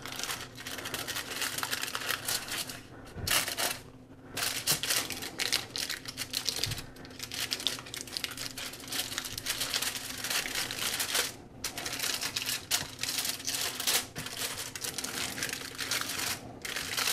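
Doubled aluminum foil being folded and pinched by hand into a tray, crinkling and crackling almost without a break, with a couple of short pauses.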